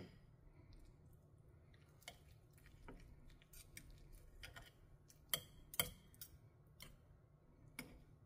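Near silence with a few faint clicks of a metal fork and knife against a plate as a baked chicken drumstick is pulled apart; the two loudest come close together a little past halfway.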